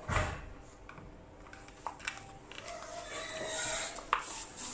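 Red plastic cover cap pressed by hand into a Yinghui fixed edge strip over its anchor screw: a short dull thump, then a few light clicks of hands on the plastic, the sharpest near the end.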